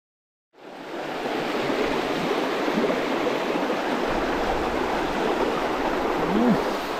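A trout stream running steadily, a constant water noise that fades in after about half a second of silence.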